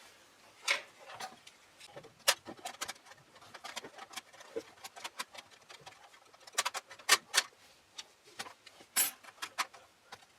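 Small sharp clicks and taps at irregular spacing, several a second, from hands fitting an NVMe drive into a PC motherboard.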